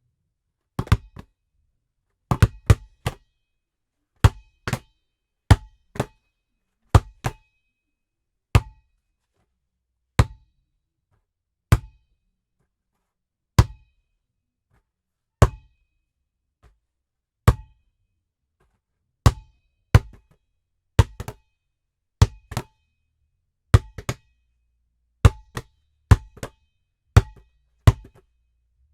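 Basketball bouncing on a hard floor, recorded dry with no reverb: separate sharp bounces, many followed by a smaller rebound hit. The bounces come about every two seconds in the middle stretch and closer together near the start and the end.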